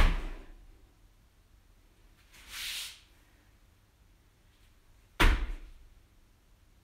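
Two forward breakfalls from kneeling, the body landing on its forearms on a thin exercise mat over a wooden floor: each a sharp thud that dies away over about half a second, the first right at the start and the second about five seconds in. A short soft hiss comes between them.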